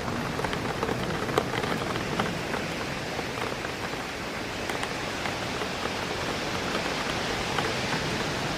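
Steady rain on a window, a constant hiss with individual raindrops tapping irregularly on the glass.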